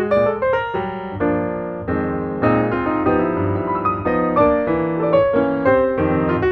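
Background piano music: a melody of quick notes over held chords.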